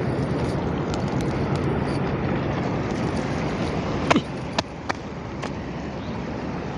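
Steady rushing and sloshing of shallow sea water as someone wades quickly through it, with a few sharp clicks about four to five and a half seconds in, after which the rushing is a little quieter.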